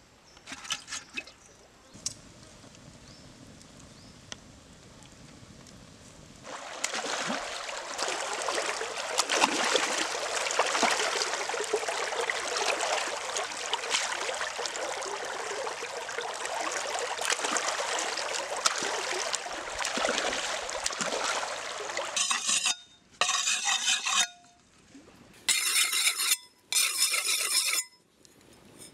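Dense, continuous splashing and sloshing of water as skinned frogs are washed by hand in a woven basket. Near the end come four scraping strokes of a knife blade on a wet stone, sharpening it.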